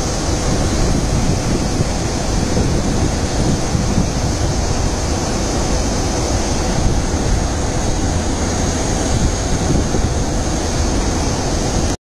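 Water pouring over a dam's concrete spillway, a steady rushing noise, mixed with wind buffeting the microphone.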